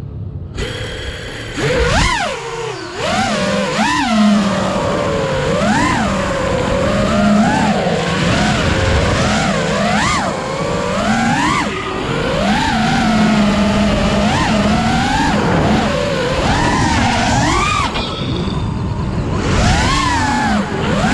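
FPV freestyle quadcopter's brushless motors and propellers whining over rushing air, picked up by the onboard camera. The pitch swoops up and down again and again as the throttle is punched and chopped. After a brief silence at the very start, the motors spin up again.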